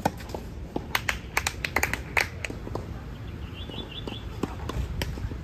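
Tennis rally on a clay court: a sharp racket hit on the ball right at the start, then a quick cluster of hits, ball bounces and footsteps over the next second or so, and another sharp hit about five seconds in. A brief high chirping comes in near the middle.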